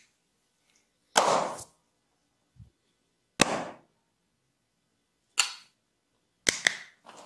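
Sharp percussive strikes of an Indian barber massage: four loud smacks about two seconds apart, the last one a quick double.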